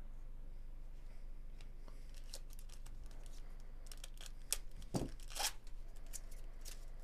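A trading-card pack wrapper being torn open and crinkled. Light rustles come first, then a louder run of tearing and crackling between about four and six seconds in.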